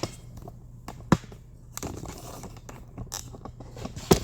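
Handling noise as parts are picked up and moved: scattered clicks and knocks with some rustling and scraping, a sharp knock about a second in and another near the end, over a low steady hum.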